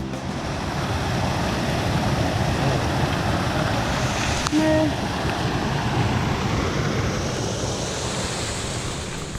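Steady rush of wind and surf, with wind buffeting the microphone. About halfway through there is a click and a brief, short pitched sound.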